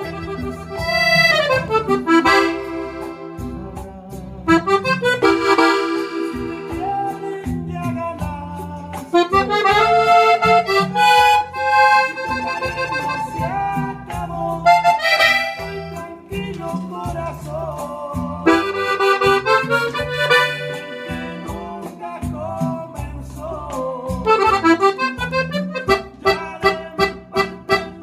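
Gabbanelli button accordion played solo: a melody on the treble buttons over an alternating bass-and-chord accompaniment from the bass buttons. Near the end it breaks into quick, short repeated notes.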